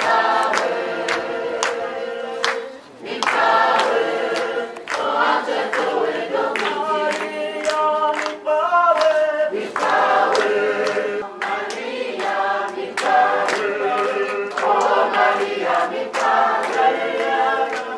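A group of voices singing a hymn together in chorus, in long held notes, with a sharp beat struck along with the singing.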